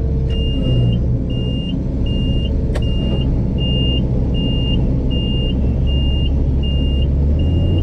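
Combine harvester's diesel engine running steadily while its backup alarm beeps evenly, about once every three-quarters of a second. A single sharp click about three seconds in, and the engine note rises near the end.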